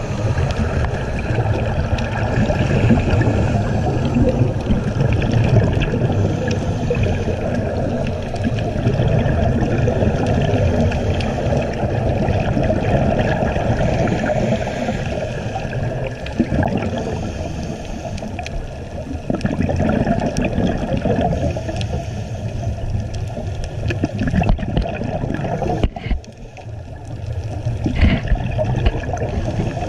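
Muffled underwater bubbling and gurgling of scuba divers' exhaled air, heard through a GoPro's waterproof housing; the noise is continuous, strongest in the low range, with a brief dip near the end.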